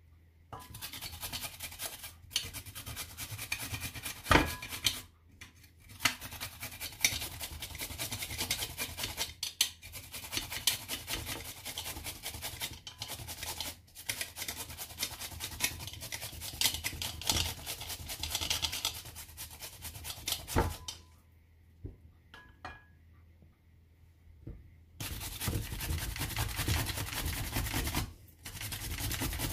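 Cucumber being grated on a flat metal hand grater: a fast, continuous run of rasping strokes. It stops for a few seconds about three quarters of the way through, then starts again. Two sharp knocks stand out, one early and one just before the pause.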